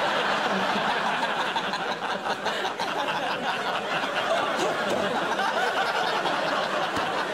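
Studio audience laughing, a dense, steady crowd laugh that holds for several seconds.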